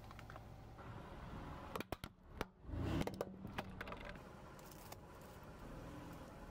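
Objects crushed under a car tyre: a few sharp cracks about two seconds in, then a dull crunching thud, with scattered clicks after.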